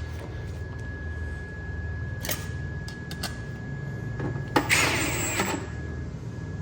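A steady high-pitched electrical whine over a low hum, broken by a couple of light clicks and a short clatter of small metal parts being handled just past the middle. The whine stops briefly near the end.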